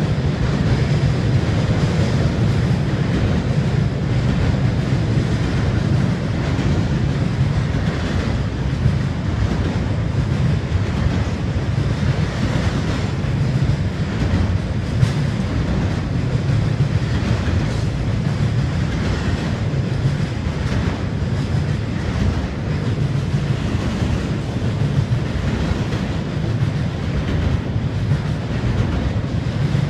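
Norfolk Southern freight train's double-stack container cars rolling steadily over a steel truss railroad bridge: a continuous low rumble with scattered clicks of wheels over rail joints.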